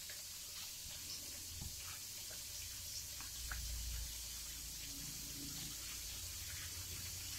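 Faint soft rustling and light clicks of fingers pressing and turning shrimp in seasoned flour in a plastic bowl.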